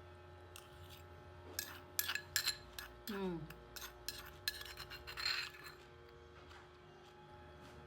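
Spoon clinking and scraping against a dish, a cluster of sharp clinks from about one and a half to five seconds in, with a brief falling tone about three seconds in and a short scrape near the end of the clinks.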